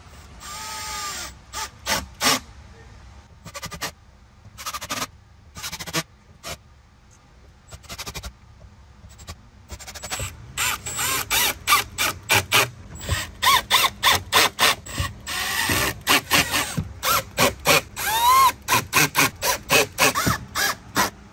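Milwaukee Fuel cordless drill/driver running in short bursts, driving small stainless machine screws into speaker trim rings. The bursts come in quick succession in the second half, some with a whine that rises and falls as the motor spins up and stops.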